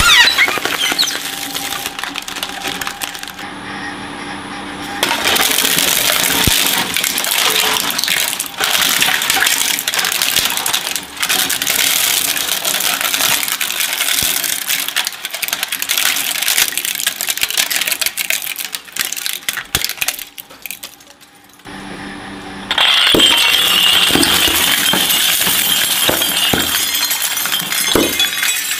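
Twin-shaft shredder's rotating cutter discs crushing one thing after another: a soccer ball flattened and torn, then CDs cracking and shattering into shards with dense crackling, then, after a brief quieter gap about three quarters of the way through, hollow plastic balls cracking apart.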